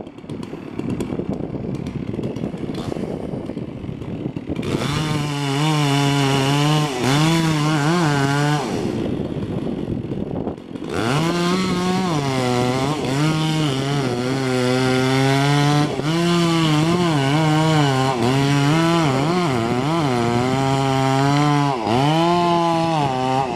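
Two-stroke chainsaw cutting wood. Its pitch repeatedly dips and recovers as the chain loads in the cut. It runs in two stretches, with a break of about two seconds a little before the middle.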